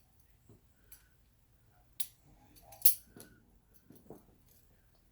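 FEOK1 elevator fire service key switch clicking as the key is turned between positions: a few sharp metallic clicks, the two loudest about a second apart midway.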